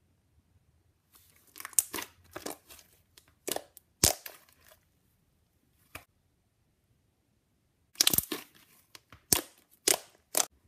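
Mocha frappe slime being stretched, folded and pressed by hand, making wet pops and clicks in two flurries: one starting about a second in, the other about eight seconds in.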